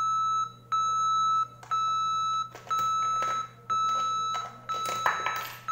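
Smartphone's Piso WiFi insert-coin beep: a steady electronic tone repeating about once a second, each beep lasting most of the second, while the portal waits for payment. A brief clatter about five seconds in as a coin goes into the vending machine's coin slot.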